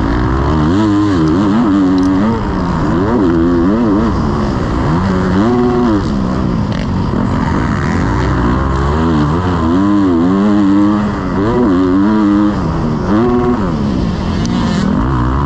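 Motocross bike engine revving hard and backing off over and over, its pitch climbing and dropping every second or two.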